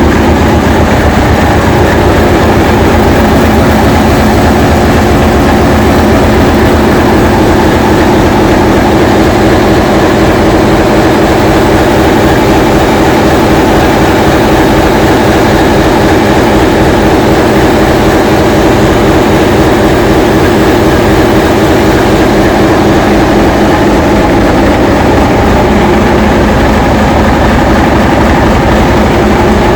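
English Electric diesel-electric locomotive engine running loudly at a steady speed.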